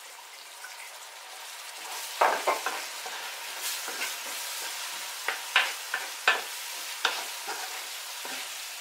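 Chopped onions and carrots sizzling in a frying pan with a splash of brandy, the alcohol cooking off. The sizzle builds about two seconds in, and a wooden spoon stirring the vegetables gives a run of sharp scrapes and knocks against the pan.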